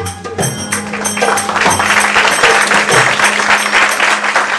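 Closing music of a Marathi powada ballad, with a held note, as audience applause starts about a second in, swells and becomes the loudest sound.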